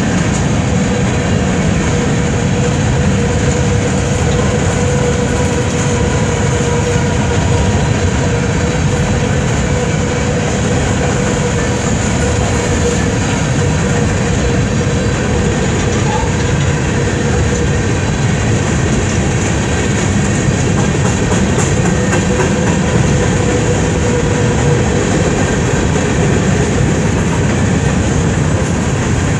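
Empty coal cars of a Union Pacific freight train rolling past at close range: a steady rumble and clickety-clack of steel wheels on rail. A thin steady tone rides over it and fades past the middle.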